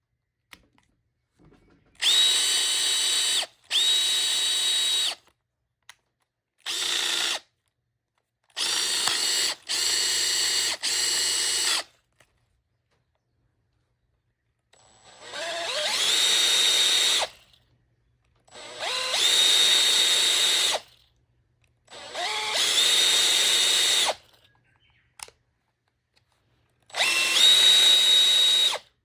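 Makita DF481D cordless driver drill running in about ten short trigger pulls with a high whine, the later runs spinning up gradually before holding speed. Its gear assembly is listed as making an abnormal noise.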